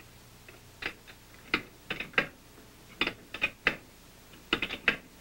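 Metal clicks of an open-end wrench on a hex-head bolt being tightened: about a dozen short, irregular clicks, some in quick pairs and clusters.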